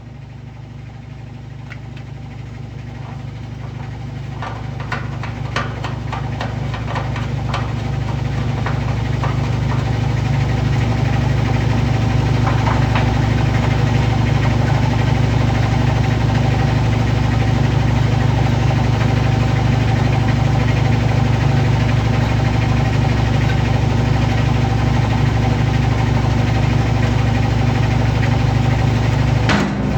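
General Electric washing machine running, a steady motor hum that builds over the first ten seconds or so and then holds, with scattered clicks and knocks in the first several seconds.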